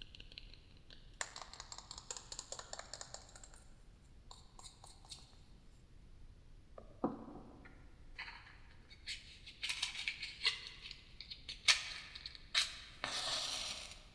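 Close-miked ASMR trigger sounds made by hand on objects: bursts of scratching and rustling with scattered sharp taps and clicks, a duller knock about seven seconds in, and a longer hiss near the end.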